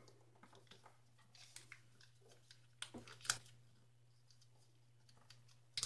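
Faint crinkles and soft crackles of origami paper being folded and creased by hand: a few brief ones, the clearest just after three seconds, over a low steady hum.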